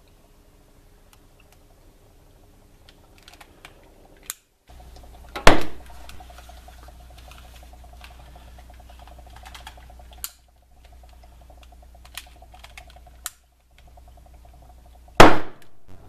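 Two sharp, very loud pops about ten seconds apart, typical of oxyhydrogen (HHO) gas from a homemade electrolysis cell being ignited. A few small clicks come before each pop, and a steady low hum runs between them.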